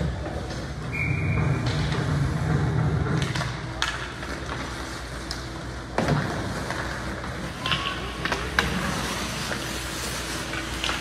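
Game ambience from the stands of a youth team game: steady background chatter and play noise, with a short high whistle-like tone about a second in and sharp knocks at about 4, 6 and 8.5 seconds.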